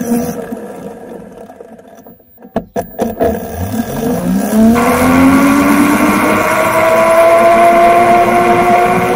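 Electric go-kart with a car alternator as its motor, chain-driven: its whine falls away as the kart slows almost to a stop, with a few knocks. About three seconds in, a two-tone whine rises steeply as the kart accelerates away, then levels off at speed, with a rushing hiss building.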